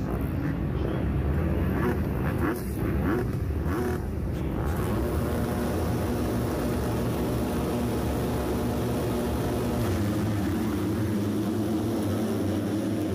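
Several dirt bike engines running together, revving with changing pitch for the first few seconds and then running more steadily.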